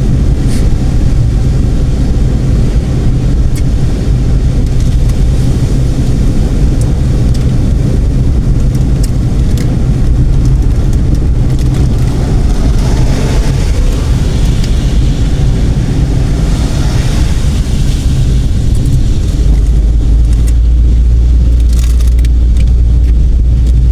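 Road vehicle driving along: a steady, loud low rumble of engine and road noise, its deepest part growing heavier about twenty seconds in.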